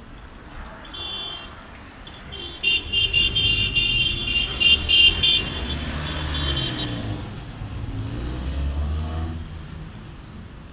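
Road traffic passing close by, engines rumbling and one engine's pitch rising and falling as it pulls past. A high-pitched horn gives a short toot about a second in, then a rapid run of short toots from about three to five seconds in.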